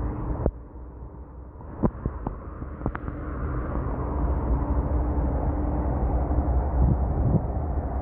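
Road traffic from cars and a bus, with low wind rumble on the microphone. A few sharp clicks come in the first three seconds, and the traffic noise grows louder after about three seconds.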